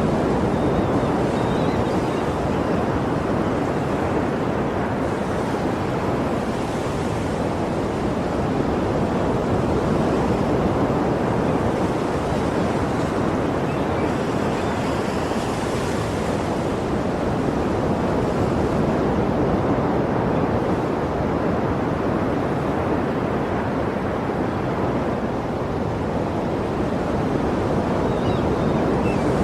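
Sea waves washing in steadily, a continuous surf noise that swells and eases gently, with one brighter hiss of water about halfway through.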